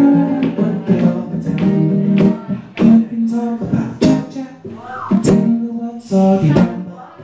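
A man singing live to his own strummed acoustic guitar, the strums coming in a steady rhythm under held sung notes.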